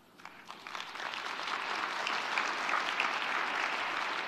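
Large audience applauding; the clapping swells over about the first second and a half, then holds steady.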